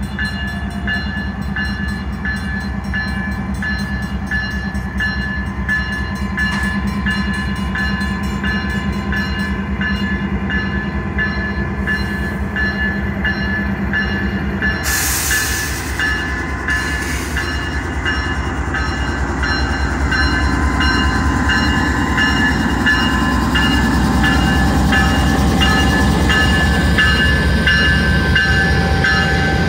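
GE C44-9W diesel locomotive with its 16-cylinder engine running as it rolls slowly past at close range, a steady rumble that grows louder as it draws alongside. A short hiss comes about halfway through.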